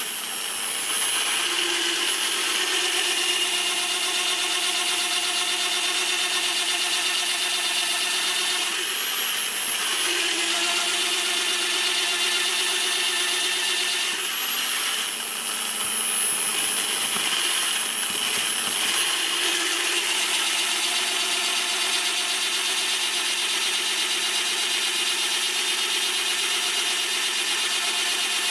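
Bosch PBD 40 bench drill press, a 710 W machine, running under load as its bit bores into a thick wooden beam: a steady motor whine with the bit cutting through wood. Its tone shifts a few times, about a third of the way in and again past the middle.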